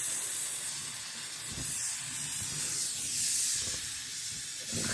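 Small oxy-propane brazing torch burning with a steady hiss.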